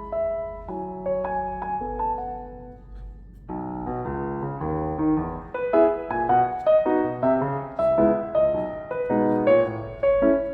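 Background piano music: a slow, sparse melody that turns fuller with chords about three and a half seconds in.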